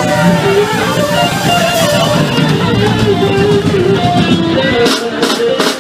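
Live band music led by guitar, with crowd noise beneath. The low end of the music drops out about five seconds in, followed by three sharp knocks.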